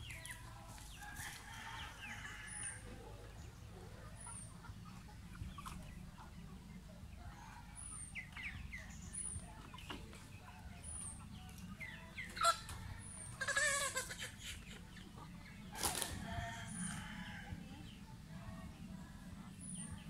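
Free-range chickens clucking in short scattered calls, with one louder drawn-out call about two-thirds of the way through. A sharp knock comes a little after it, and a faint high chirp repeats every second or so.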